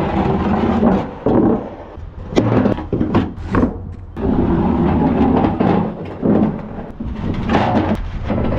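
Metal loading ramps of a low-loader trailer being lifted off and set into position: irregular clanks, knocks and scrapes over a steady low rumble.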